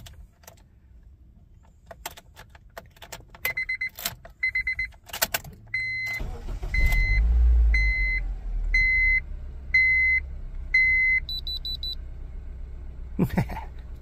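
Keys jangling, then a 2007 Honda Civic's four-cylinder engine cranking briefly and catching about six seconds in, then idling with a steady low rumble. A dashboard chime beeps about once a second over it, and near the end an OBD2 code scanner gives a quick run of high beeps as it reads out a stored cylinder 2 misfire code.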